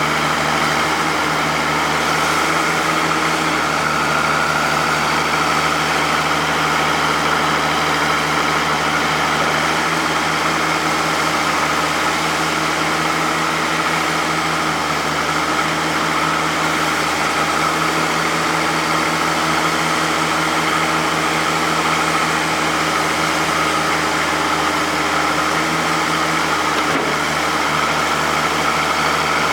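Oliver 88WT backhoe's tractor engine running at a steady idle, with an even, unchanging pitch throughout.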